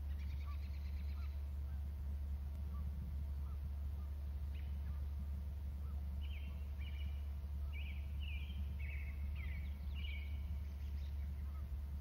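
A bird calling, a run of short high notes repeated in quick succession from about halfway in until near the end, with faint small chirps scattered throughout. A steady low hum lies under it all.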